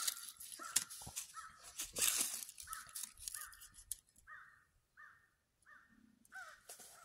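A crow cawing over and over, about ten caws at an even pace. In the first half, the loudest sounds are sharp crackles and rustles of dry leaves and tinder being handled; these stop about four seconds in.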